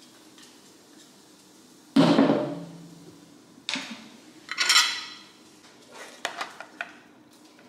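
Kitchen prep sounds on a stone countertop: a sharp knock about two seconds in, then clinks and scraping of a spoon in a small plastic container as avocado is mashed, and a few light clicks near the end.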